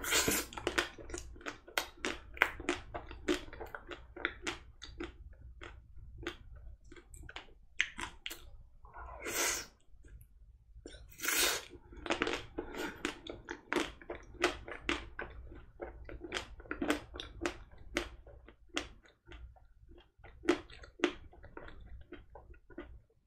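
Close-miked chewing of a chocolate-coated Magnum ice cream bar: the crisp chocolate shell cracking between the teeth, with many quick wet mouth clicks. Two brief hissing sounds come a little before and after halfway.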